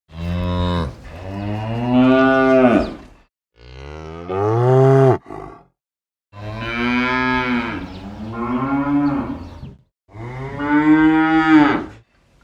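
Cattle mooing: a series of long, loud moos that bend in pitch, separated by short silent gaps.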